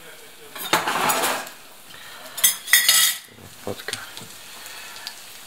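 Metal cutlery clinking and scraping against dishes, with a cluster of sharp clinks about two and a half to three seconds in, one of them ringing briefly. Under it, in the second half, the faint steady sizzle of semolina fritters frying in oil in the pan.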